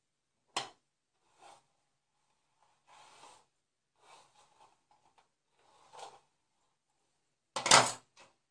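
Scattered short rubbing and knocking noises: a sharp click about half a second in, a few soft rubs, and a louder knock near the end, with near silence between.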